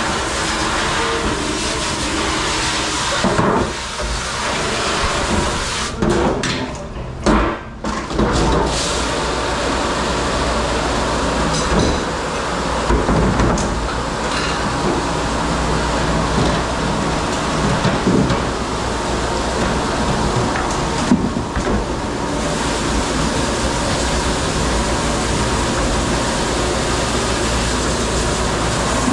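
Steady machine rumble and rush of a commercial dish pit, with dishes and pans clattering now and then, most of all a few seconds in.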